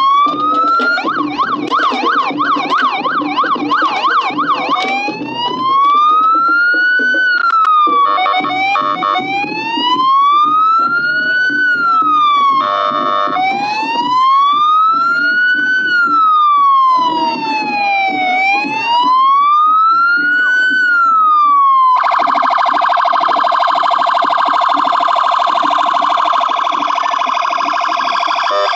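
Police car's electronic siren, loud. It starts with a fast yelp, then goes into a slow wail rising and falling about every five seconds, broken by two short chopped bursts. In the last several seconds it switches to a steady, harsh horn tone.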